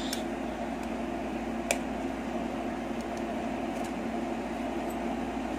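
Steady mechanical hum of a fan-like machine running in the room, with a few light clicks as the phone's display and frame are handled, the sharpest about one and a half seconds in.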